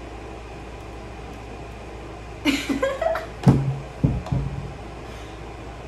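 Steady low room hum, then about halfway through a brief voice followed by a short burst of a woman's laughter.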